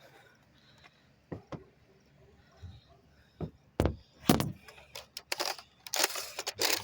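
Sharp clicks and knocks, a few at first and then louder, followed by a couple of seconds of dense clattering and rustling, typical of Nerf blasters being handled and primed.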